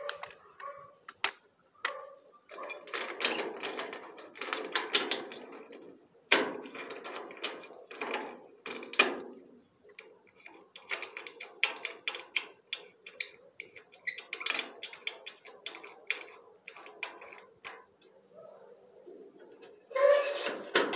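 Keys and a rim lock on a metal door being handled: a string of metallic clicks, knocks and rattles, with louder rattling near the end.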